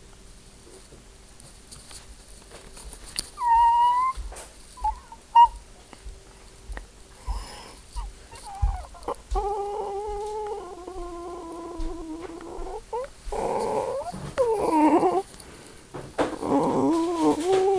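A person imitating animal calls with their voice: a short falling squeak, a few small yips, then long wavering whines like a dog whimpering, broken by a rougher, raspy sound.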